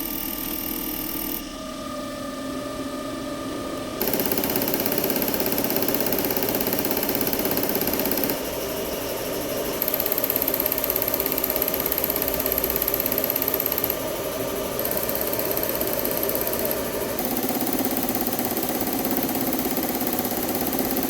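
Common rail injector test bench running with a Bosch piezo diesel injector firing on it: a steady mechanical drone with a fast, even pulsing. The sound and its loudness change abruptly several times, as at a change of test step.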